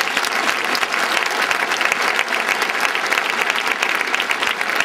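A large crowd applauding, with dense, even clapping.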